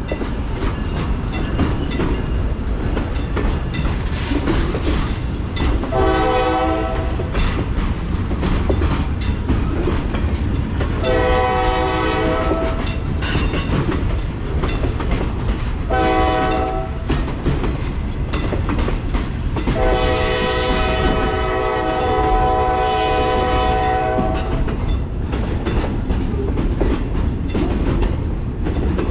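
Locomotive air horn sounding four blasts, long, long, short, long: the standard grade-crossing signal. Underneath, the passing train's steady rumble and rhythmic clickety-clack of wheels over rail joints.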